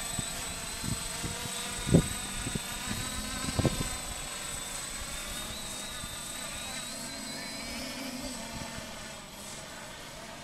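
Quadcopter's motors and propellers buzzing overhead, the pitch wavering slightly as it flies. Two loud low thumps stand out about two seconds and nearly four seconds in.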